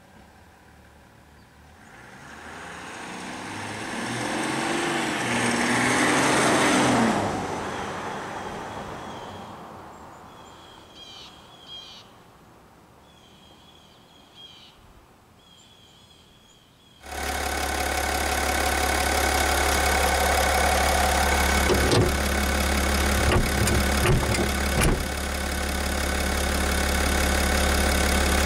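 A Chevrolet Silverado's 3.0 L LM2 Duramax inline-six diesel drives past, growing louder for several seconds and then fading away. After a sudden cut, the same engine is heard close up from under the hood while driving, running steadily with a deep drone and a few thumps about two-thirds of the way through.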